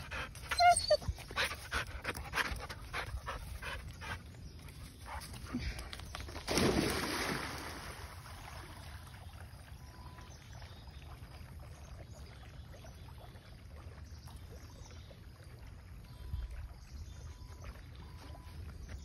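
A dog whimpers excitedly at the start, then a loud splash about six and a half seconds in as it leaps into the river, fading over a second or so. After that there is only faint background sound while it swims.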